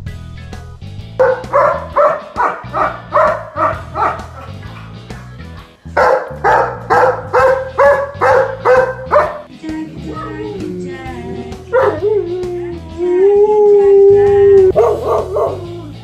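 Bernese mountain dog barking in quick runs of about three barks a second, then a long wavering howl of about five seconds, then a few more barks near the end, over background music.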